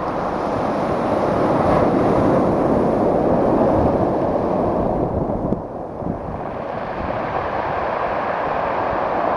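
Pacific Ocean surf breaking and washing up the beach, a loud steady rushing that swells, drops away briefly about six seconds in, then builds again.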